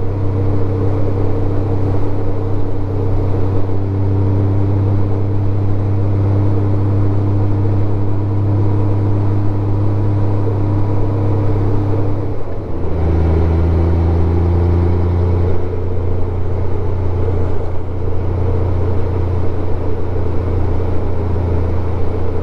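Honda Gold Wing 1500's flat-six engine running steadily under way. About twelve seconds in the engine note dips briefly and settles at a different pitch, as with a gear change.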